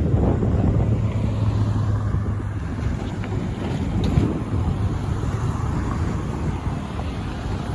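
Union Pacific freight train's diesel locomotives rumbling low and steadily, with wind buffeting the microphone.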